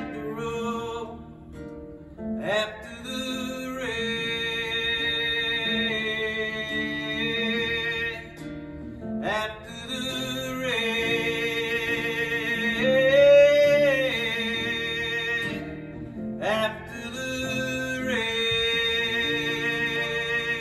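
A male singer holds long, wavering notes in three drawn-out phrases, with no clear words, over a strummed acoustic guitar.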